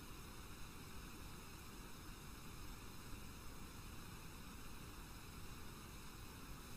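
Faint steady hiss with a low hum underneath: the recording's background noise, with nothing else sounding.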